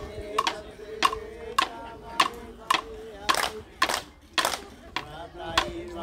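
Mortlock Islands rue dance song: group voices holding a chanted note over sharp percussive beats in a steady rhythm, about one every 0.6 seconds. The held note breaks off a little past halfway, and a lower one comes in near the end.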